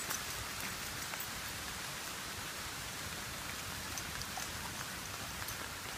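Steady rain pattering, an even hiss with many small drop ticks scattered through it.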